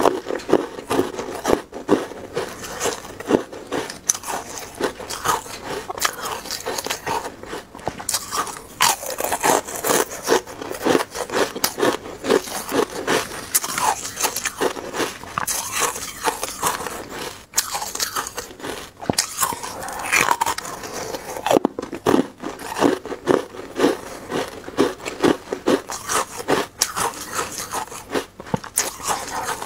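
Ice cubes, frozen matcha and plain ice, being bitten and chewed: rapid, irregular crisp crunching and cracking throughout.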